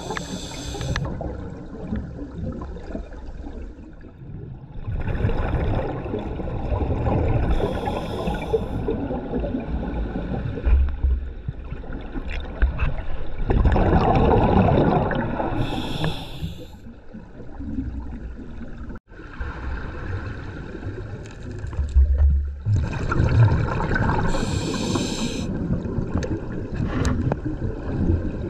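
A scuba diver breathing through a regulator underwater: a rushing, gurgling burst of exhaled bubbles about every eight seconds, with a short hiss around each breath and quieter stretches between.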